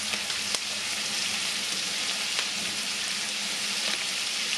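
Sliced onions, green chillies, dried red chillies and curry leaves sizzling steadily in hot oil in a frying pan as they sauté, with a few brief clicks.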